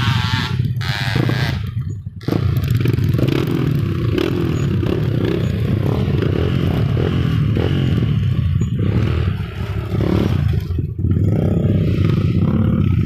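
Road traffic: vehicle engines running and passing close by, a continuous low rumble with a brief drop in level about two seconds in and again near the end.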